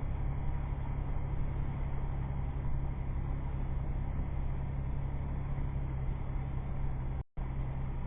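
Toyota FJ Cruiser's engine running with a steady low drone under a constant hiss of road or water noise. The sound cuts out completely for a split second about seven seconds in.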